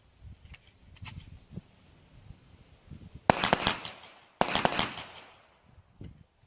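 Pistol fire: two rapid strings of several shots each, about a second apart, each trailing off in echo. A few faint sharp cracks come earlier.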